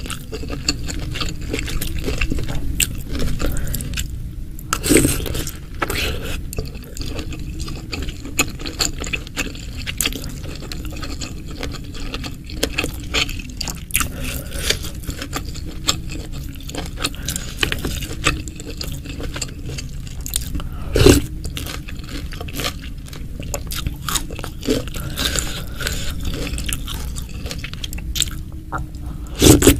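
Close-miked eating of spicy Indonesian beef meatballs in broth: steady chewing and biting with wet, squishy mouth sounds and scraping. A few louder knocks come about five seconds in, about twenty-one seconds in and near the end.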